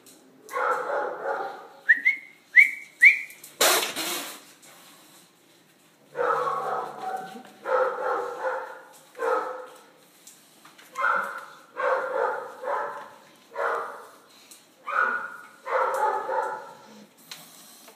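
Black and tan coonhound barking in a steady run of drawn-out barks, about one every second and a half. Near the start there are a few short high rising yelps and one brief loud noise.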